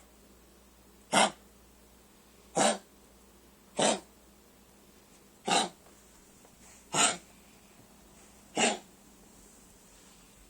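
A 12-year-old Chihuahua coughing with kennel cough: six short coughs, about one every second and a half.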